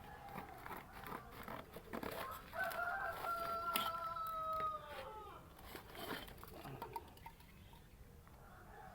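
A rooster crowing once: a long held call that drops in pitch as it ends, about two and a half seconds in. Scattered small clicks and knocks sound around it.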